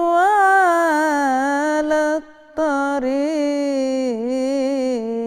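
A woman's solo voice singing Arabic devotional inshad with no instruments, drawing out long, ornamented held notes with slow wavering bends, with a short pause about two seconds in.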